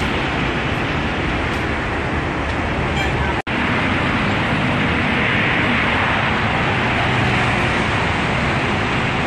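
Steady running noise of an OM VT4-20NS CNC vertical lathe, an even mechanical din that cuts out for an instant about three and a half seconds in.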